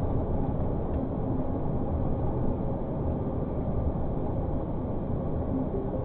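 Tractor-trailer truck driving, its engine and road noise a steady low drone, heard from a dashcam inside the cab.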